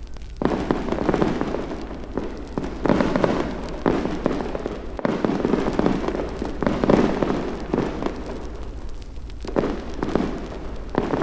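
Fireworks going off, a run of crackling, popping bursts that swell up every second or two.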